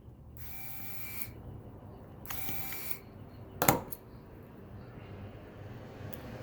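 Small repair tools working on a phone: two brief mechanical whirs, each under a second with a faint steady tone in it, then a single sharp metallic tick a little after the second one.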